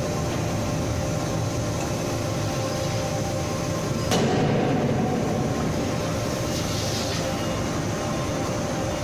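Double-arm die forging press striking a red-hot workpiece once, about four seconds in: a single sharp blow over the steady hum of the running machinery.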